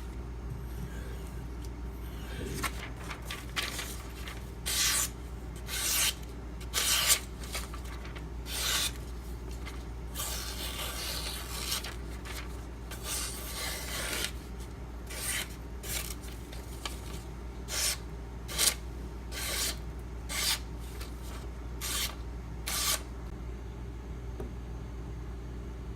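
Knife blade stroked along a strop loaded with 2-micron CBN emulsion: short rubbing strokes, about one a second, with a longer run of strokes in the middle.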